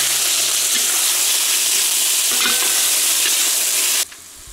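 Meat frying in a pan, a loud steady sizzle that cuts off suddenly about four seconds in.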